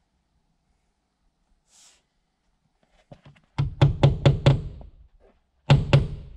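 Fasteners being driven through the peel-and-stick membrane into the plywood sheathing: a quick run of about five sharp knocks with a hollow thud from the wall, then two more a second later.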